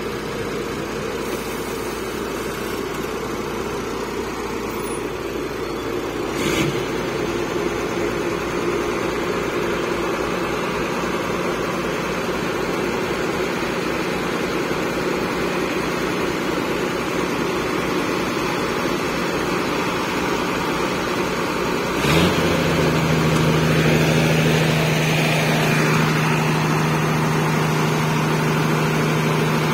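Komatsu tracked excavator's diesel engine running under hydraulic load as it climbs onto a flatbed truck. There is a brief clank about six seconds in, and a loud knock about two-thirds of the way through, after which a louder, steady engine drone continues.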